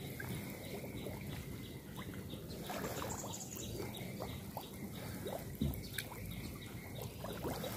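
Water sloshing and trickling as people wade and grope for fish by hand, with a few small splashes and a faint steady high whine behind.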